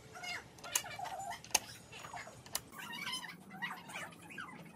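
An animal calling repeatedly in short calls that bend up and down in pitch. Three sharp clicks come through as small metal engine parts are handled on the bench.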